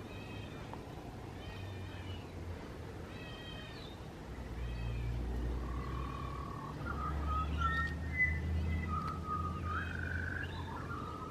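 Birds calling in a garden: a short mewing call repeated about once a second, joined about halfway through by a clear whistled song that steps between notes.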